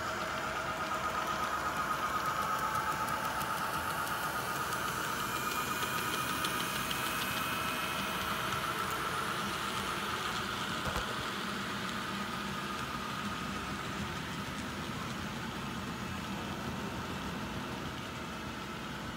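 N scale model trains running: the locomotives' small electric motors whine steadily and the wheels click rapidly over the track, a little louder in the first few seconds.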